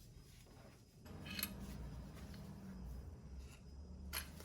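Two faint, sharp clicks over a low, steady hum that starts about a second in.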